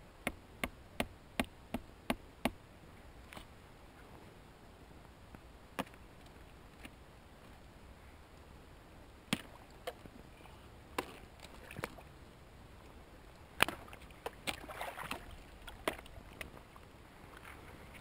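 Footsteps in rubber boots wading through water-filled ruts and mud, with soft splashes and squelches. A quick run of sharp clicks comes in the first two seconds, then single clicks now and then.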